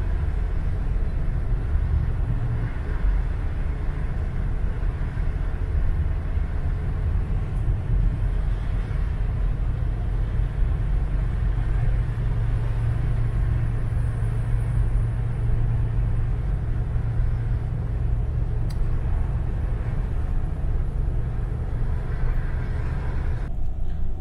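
Steady in-cabin driving rumble of a 1970 Buick Estate Wagon at highway speed: its 455 V8 and tyres on the road, deepest in the low end. Near the end the sound changes abruptly to a duller rumble.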